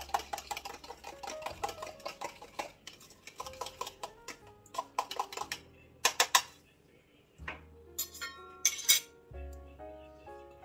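A utensil clinking rapidly against a small glass bowl as eggs and vanilla are beaten, a dense run of clicks for the first few seconds, then a few sharper clinks later. Background music with a simple stepping melody comes in over the second half.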